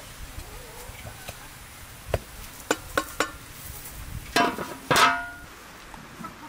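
A few sharp knocks, then the lid of a large aluminium pot of cooked rice set down onto the pot with two ringing metallic clangs, the second the loudest.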